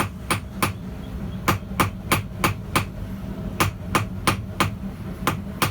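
Hand hammer striking hot steel rod on a small bread loaf anvil, about three blows a second in short runs with brief pauses, each blow ringing sharply, over a steady low hum.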